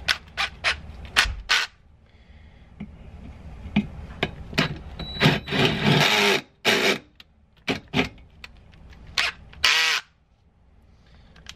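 Power drill with a larger gold twist bit boring out a pilot hole in a steel seat-mounting bracket, run in several short bursts. The longest bursts come about six to seven seconds in, and the drilling stops about ten seconds in.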